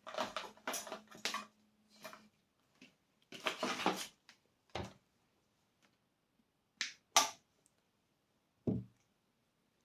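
Handling noises while working on intercom wiring: a few short bursts of rustling, a longer rustle about three and a half seconds in, then four separate sharp clicks or knocks over the later seconds.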